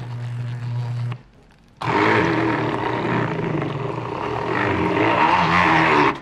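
Electric hand (immersion) blender grinding chickpeas and cookie-dough ingredients in a glass jar. It runs with a steady hum, stops about a second in, then starts again louder with a wavering pitch and cuts off suddenly near the end.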